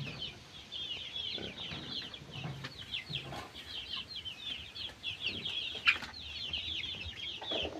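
A flock of two-month-old layer pullets peeping and cheeping continuously, many short high calls overlapping, with a single sharp click about six seconds in.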